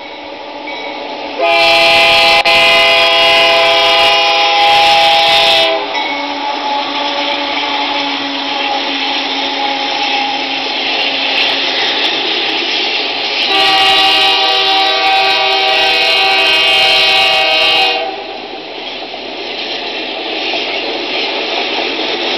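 Model locomotive sound effects: two long horn blasts, the first starting about a second and a half in and the second about halfway through, over a continuous running engine sound.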